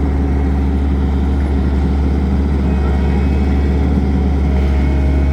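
Skid steer engine running steadily under operation, a low, even drone. A faint thin whine joins about four and a half seconds in.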